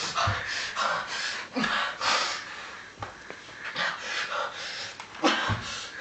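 A person breathing in irregular, noisy breaths, with a short low thump about five seconds in.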